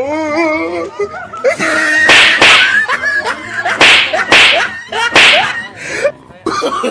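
About five loud, sharp slapping whacks land in quick succession as a man is beaten. Before them, and between them, comes a man's wavering, wailing cry.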